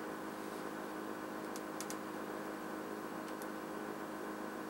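A few faint light clicks as a compression nut and plastic water line are worked by hand against a fridge's water inlet fitting: a quick cluster a little under two seconds in and a pair past three seconds. Under them runs a steady hum.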